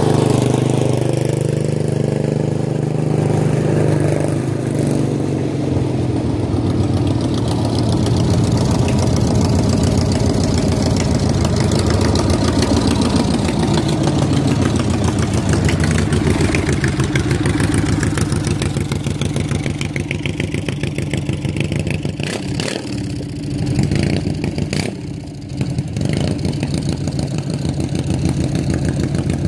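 Small lawn-tractor engines running and revving as off-road lawn tractors drive through mud, the pitch rising and falling. A few sharp knocks come about three-quarters of the way through.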